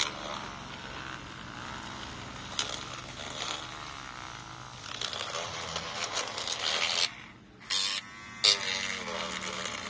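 Small handheld electric glue-removal tool buzzing as its thin metal rod scrapes old adhesive off the edge of a phone's mid-frame, with a brief pause about seven seconds in.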